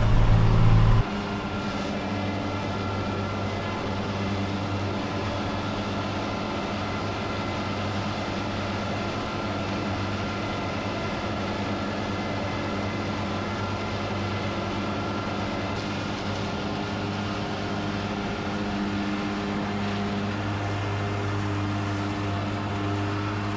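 Tractor engine running steadily under load while pulling a disc mower-conditioner through standing rye. The drone drops in level about a second in, then holds even.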